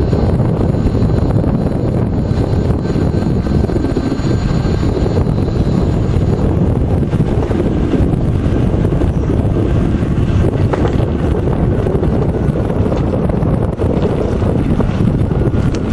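Steady wind rumble buffeting the microphone of a camera riding along on a moving electric bike, with faint high whining tones over it in the first few seconds.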